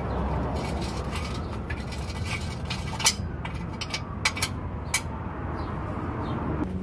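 A hand wrench working the bolts on a car's exhaust pipe flange: scattered sharp metal clicks and clinks, about half a dozen, over a steady low rumble.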